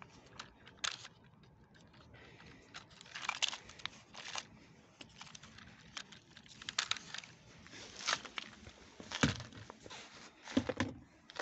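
Handling noise from a radio-controlled car chassis being carried and set down on plastic sacks in a car boot: scattered clicks, scuffs and crinkling plastic, with a heavier thump about nine seconds in.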